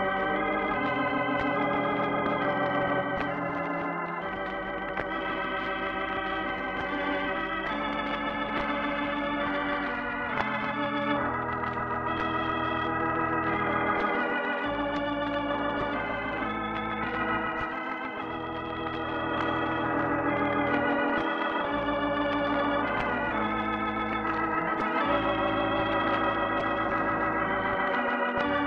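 Organ music playing slow, held chords that change every second or two: the program's closing music.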